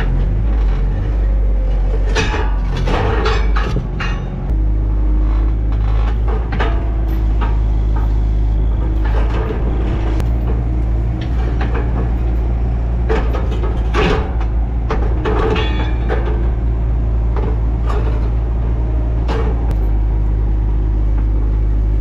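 Skid steer engine running steadily under load, with irregular clanks and scrapes as its ripper tooth digs into rocky ground.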